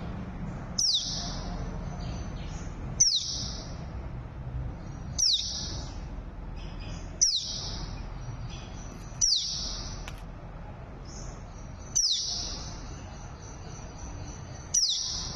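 A songbird repeating the same call seven times, about every two seconds: each call is a quick high downward sweep that runs into a short buzzy trill. A faint steady low rumble lies underneath.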